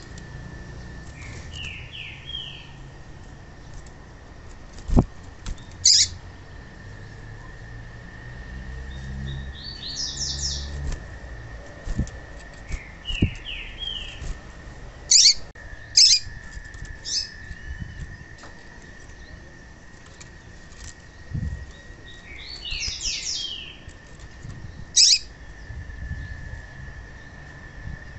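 Female papa-capim (seedeater) calling: short sharp high chirps and brief clusters of quick twittering notes every few seconds, with wing flutters and light knocks as she hops between the cage perches. A faint steady high tone runs underneath.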